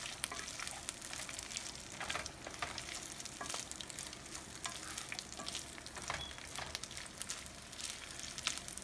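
Small dried anchovies frying in oil in a nonstick pan: a steady sizzle full of small crackling pops, with a wooden spatula stirring and scraping them around.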